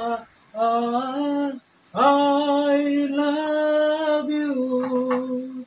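A man singing a Hindi film song unaccompanied: a short phrase, then one long held note of about three and a half seconds that ends on 'yaar', with brief pauses for breath between.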